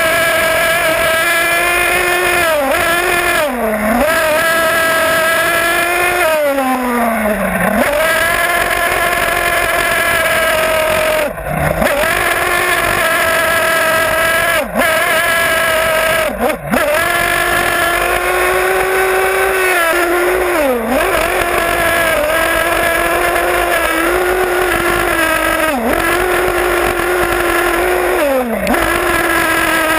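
The Nitro Star F4.6 nitro engine of a 1/8-scale HPI Trophy truggy running at high revs, heard close up from the truggy itself. Its pitch dips and climbs back each time the throttle is lifted and reopened, about eight times.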